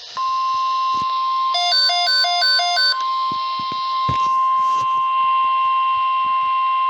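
NOAA Weather Radio warning alarm tone: a single steady 1050 Hz tone over radio hiss, the signal that a National Weather Service alert message is about to follow. About a second and a half in, a quick alternating beep pattern sounds over it for just over a second.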